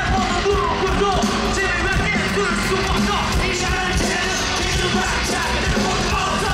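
Loud live concert music from a K-pop group, heard from the audience: a dance track with a steady beat and sung vocals over the arena sound system, with fans screaming over it.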